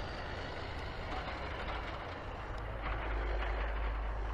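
Footsteps crunching on the gravel ballast of a railroad track, over a steady low rumble.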